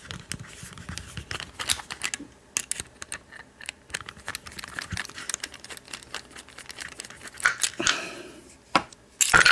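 Small metal clicks and taps of tools and padlock parts being handled during disassembly of the lock, with a louder clack near the end.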